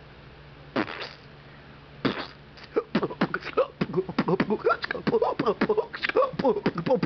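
A man's voice making fast nonsense mouth noises, beatbox-like. A few sharp breathy puffs come in the first two seconds, then from about three seconds in a quick run of short vocal syllables sliding up and down in pitch.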